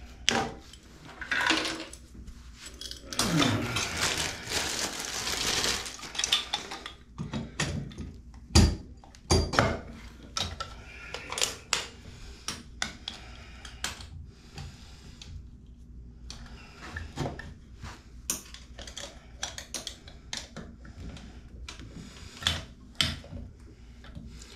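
Metal clinks, clicks and knocks of a chrome tub spout being slid onto a greased copper stub-out and fastened by hand, with a few seconds of scraping and rubbing early on and one sharp knock about eight seconds in.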